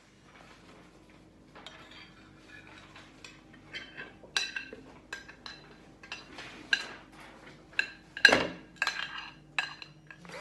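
Light clinks of a utensil against a ceramic mixing bowl, irregular single strikes with a short bright ring, the loudest one about eight seconds in, with a duller knock.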